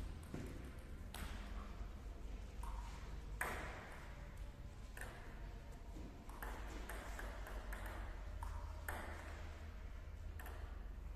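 Table tennis ball clicking against paddles and the table: single hits spaced a second or two apart, then a quicker run of hits in a rally about six and a half to seven and a half seconds in, in a large gym hall over a low steady hum.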